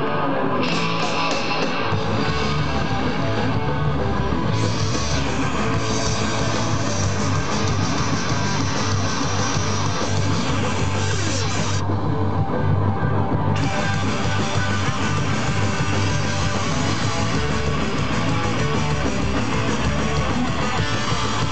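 Punk rock band playing live, heard from the audience: electric guitars, bass and drums. The bass end comes in about two seconds in, and the high end drops out briefly a little past the middle.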